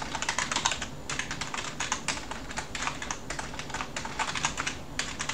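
Typing on a computer keyboard: a quick, uneven run of key clicks as a command is typed.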